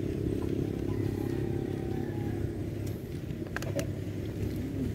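A small engine running steadily at a low drone, with a few faint clicks about three and a half seconds in.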